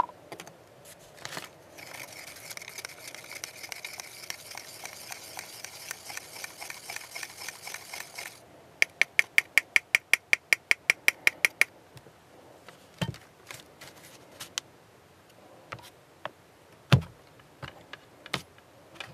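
A paint container with a mixing ball inside being shaken to mix the primer surfacer: a fast rattle for about six seconds, then about twenty slower, sharper clacks. A few dull knocks follow near the end as things are handled and set down.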